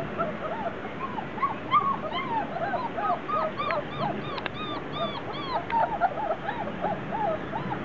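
Magyar Vizsla puppies whining and squeaking, many short rising-and-falling cries in quick succession and overlapping, growing busier from about two seconds in.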